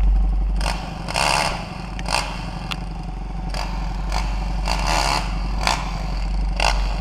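Dirt bike engines idling with a steady low rumble, a Kawasaki KX250F among them. About nine short bursts of rushing noise come at irregular spacing over the top.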